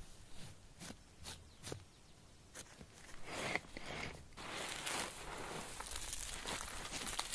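Hands scraping and sweeping dry, gravelly soil: a few short scuffs in the first couple of seconds, then longer scratchy sweeps through the rest.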